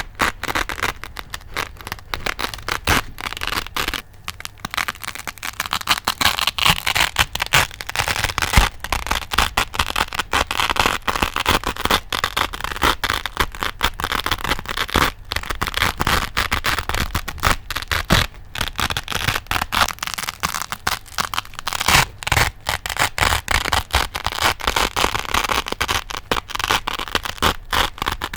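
Velcro (hook-and-loop fastener) pressed and rubbed close to the microphone, giving a continuous dense crackle of many rapid tiny clicks, steady in level throughout.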